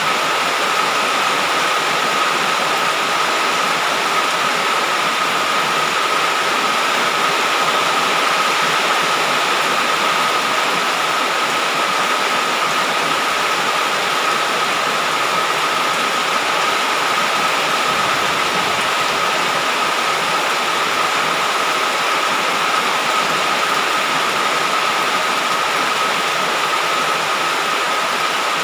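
Heavy rain falling in a steady, unbroken downpour, with a faint steady high tone running through it.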